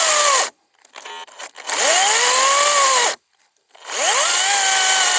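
Makita 18V cordless chainsaw with a 10-inch bar cutting through a small log in short trigger bursts: the electric motor's whine rises as it spins up, holds while the chain cuts, and winds down as the trigger is released. One burst ends about half a second in, a second runs for about a second and a half, and a third starts near four seconds.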